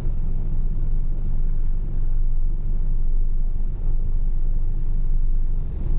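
Large truck's engine running, heard from inside the cab as a low, steady rumble.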